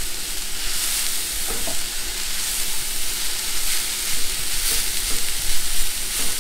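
Shredded cabbage and onion sizzling as they brown in a cast iron skillet, a steady frying hiss. A spatula stirs and turns them, scraping faintly against the pan.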